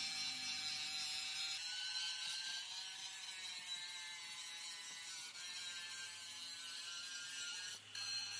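Handheld angle grinder grinding down the weld beads on a steel leaf-spring hanger: a steady whine that shifts a little in pitch as the load on the disc changes.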